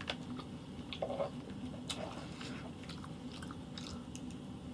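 A person chewing food, with small wet clicks and a few brief crunches at irregular moments.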